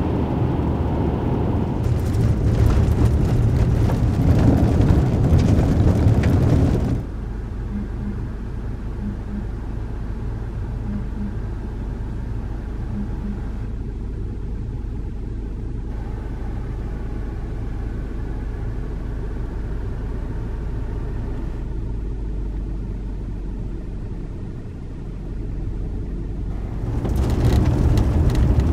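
Road noise heard inside a Toyota RAV4's cabin while driving. About seven seconds in it drops to a quieter, steady engine hum, and it rises again near the end as the car drives on a dirt road.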